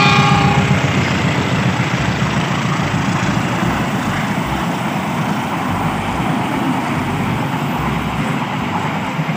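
Passenger train passing close by: the diesel locomotive's horn cuts off just after the start, then its engine rumbles past and the coaches follow with a steady rushing of wheels on rails. The sound fades slowly as the train moves away.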